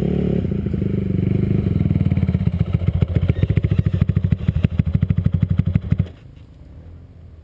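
Dirt bike engine idling close by, its firing pulses growing distinct and uneven before it shuts off suddenly about six seconds in.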